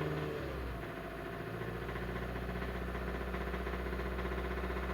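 Hyundai i30's 1.4-litre four-cylinder petrol engine running at a held fast idle of about 2000 rpm, with a knock running through it. The mechanic suspects the crankshaft or the valves. The revs sag briefly about half a second in, then hold steady.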